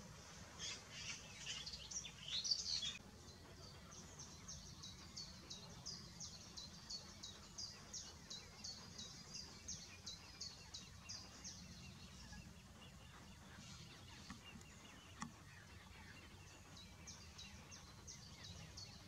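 Eurasian coot chicks begging with high, thin peeps: a louder cluster of calls in the first three seconds, then a steady run of single peeps about two to three a second, which pauses for a few seconds and starts again near the end.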